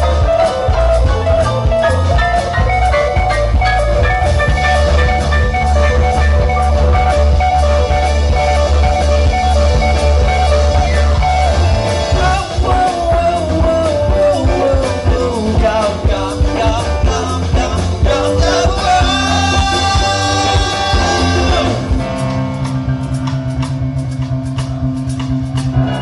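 Live rock band playing electric guitar, electric bass, drum kit and keyboards, with a sustained lead melody that bends and slides in pitch over a steady low pulse. About four seconds before the end the heavy drum-and-bass beat drops back, leaving held low notes and lighter playing.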